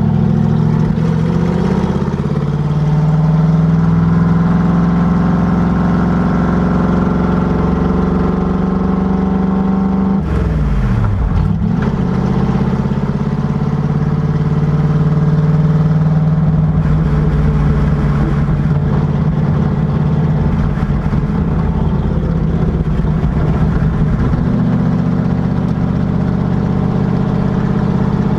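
Factory Five Racing Cobra Daytona Coupé's V8 engine running at steady moderate revs. The pitch climbs in the first few seconds, then drops sharply about ten seconds in before settling again.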